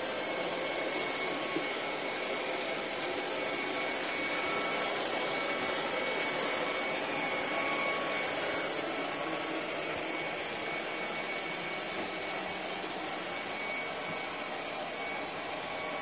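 ILIFE robot vacuum running across a tile floor: a steady whirring hum with a faint high whine.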